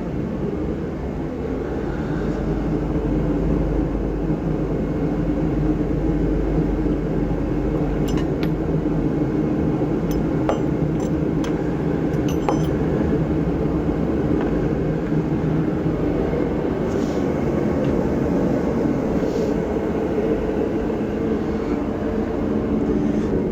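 Steady low mechanical drone throughout, with a few light metal clinks of hand tools and brake-line fittings between about 8 and 13 seconds in.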